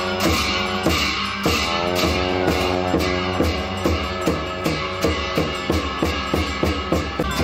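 Music with a plucked string instrument and a drum beat. The strokes come faster toward the end.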